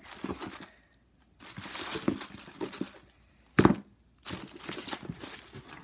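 Packaging crinkling and rustling as it is handled, in several stretches, with one sharp knock about three and a half seconds in.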